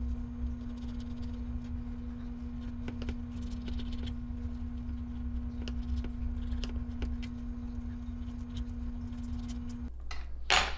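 Table knife cutting a crisp quesadilla on a wooden cutting board: faint scattered taps and scrapes of the blade against the board. Under them runs a steady low hum that stops abruptly near the end.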